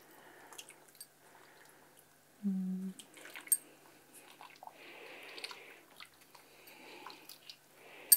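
Wet fabric pushed about in a pot of dye liquid: soft sloshing and dripping with small clicks. About two and a half seconds in comes a brief low hum, the loudest sound here, and a sharp click near the end.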